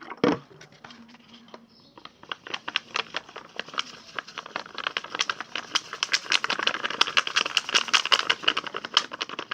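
Spoon stirring a runny mix of white glue and saline solution in a plastic pot. There is a knock just after the start, then a dense run of quick clicking and scraping from about two seconds in, growing louder toward the end.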